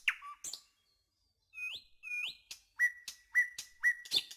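Short whistle-like chirps: two quick rising whistles, then three brief notes at one pitch. A fast ticking, about ten a second, starts near the end.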